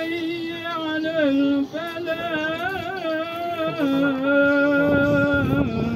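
A single man chanting an Islamic recitation in Arabic, holding long, slowly wavering notes, with one short break about a second and a half in.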